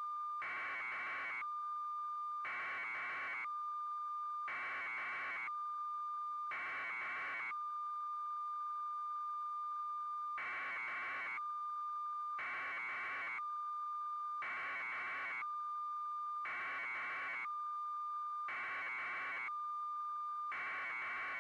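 A steady high electronic tone with a buzzing hiss pulsing on for about a second every two seconds; the pulses drop out for a few seconds near the middle.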